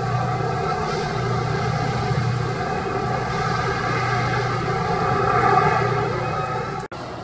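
Jet engines of a Boeing 777 passing overhead on approach: a steady rumble with several steady whine tones, swelling a little about five seconds in, then cut off abruptly near the end.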